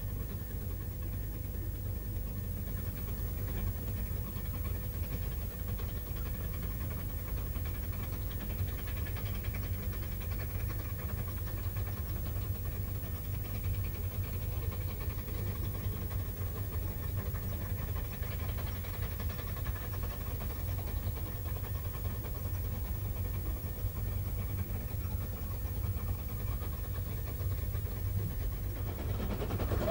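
Distant steam rack locomotives working uphill, pushing their coaches: a steady low rumble with the rapid chuffing of their exhaust.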